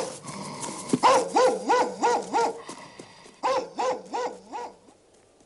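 A dog barking fast, about three barks a second: one bark at the start, a run of five about a second in, and another five from about three and a half seconds in, stopping about five seconds in.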